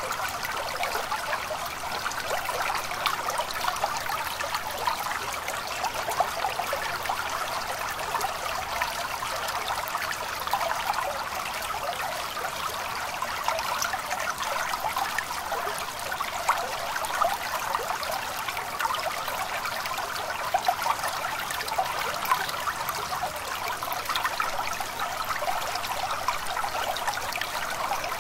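A stream of water flowing steadily, with constant small splashes and no break.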